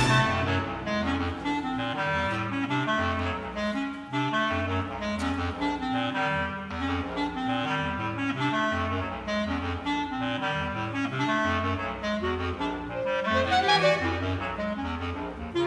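Live jazz-inflected chamber-ensemble music, with clarinet and saxophone-type woodwinds leading over a moving bass line of short notes.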